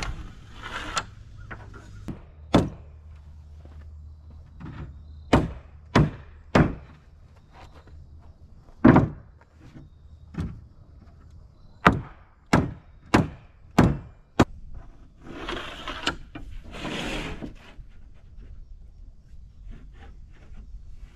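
A hammer striking a wooden block held against the edge of an OSB subfloor sheet, knocking the panels tight together: about a dozen sharp knocks at uneven spacing, with a quick run of four a little past the middle. Near the end comes a couple of seconds of scraping.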